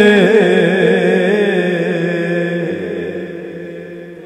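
Male voice singing a Punjabi naat unaccompanied by instruments. He ornaments and then holds a long drawn-out note over a steady vocal drone, and the sound slowly fades toward the end.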